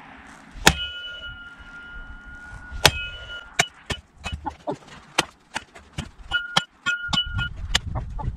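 Wooden haft of a Cold Steel pole axe striking a steel post in deliberate overstrikes. Two hard clangs come first, each leaving the post ringing with a clear note, the first for about a second and a half. A quicker run of lighter knocks and clinks follows, a few of them ringing briefly again.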